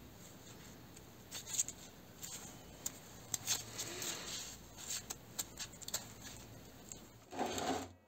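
Gloved hands handling and turning a rust-crusted pocket knife: scattered small clicks, scrapes and crinkles of corroded metal and rubber gloves, with a louder rustling scrape near the end.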